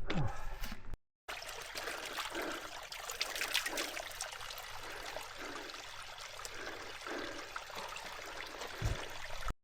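Water running and trickling steadily, as of a small hill stream. It starts abruptly just after a brief dead gap about a second in.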